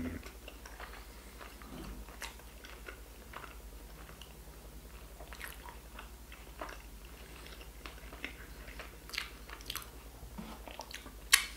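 A person chewing a mouthful of bacon cheeseburger up close: soft, irregular mouth clicks and smacks, with a faint steady low hum underneath.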